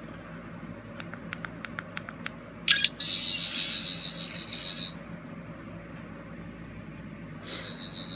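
Toy 14th Doctor sonic screwdriver on its fourth setting, playing its electronic sound effect. A run of quick clicks is followed by a high, pulsing electronic tone for about two seconds. The tone stops and starts again near the end.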